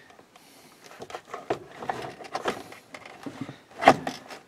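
Hard plastic console trim being handled and fitted into place: a string of light clicks, knocks and rustles, with one sharp click about four seconds in.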